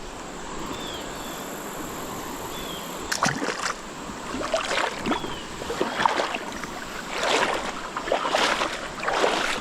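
Feet wading through a shallow creek, splashing and sloshing in irregular steps from about three seconds in, over the steady rush of the running stream.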